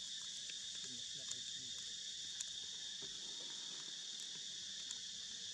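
Steady, high-pitched chorus of insects buzzing without a break, with a few faint ticks over it.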